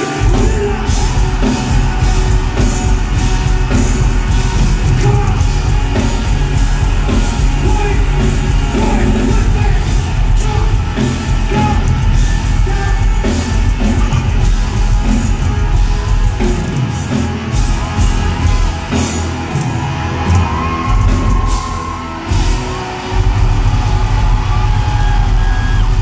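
Live rock band playing loud, with heavy bass and drums kicking in at the start, under singing and yelling. The bass drops out briefly twice in the second half.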